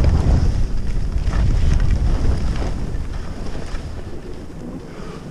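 Wind buffeting the microphone of a camera carried by a skier going downhill: a heavy, steady low rumble that eases off near the end.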